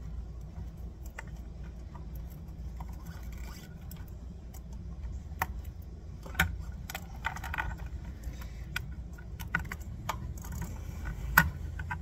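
Light metallic clicks and clinks of small metal parts being handled as a thin metal shim is fitted into a wheel hub, with two sharper knocks about six and eleven seconds in, over a low steady hum.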